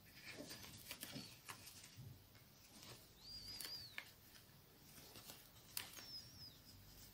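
Faint soft rustling and light clicks of yarn and a crochet hook being worked through stitches. Two faint high whistled chirps can be heard, a longer arched one about three seconds in and a short falling one about six seconds in.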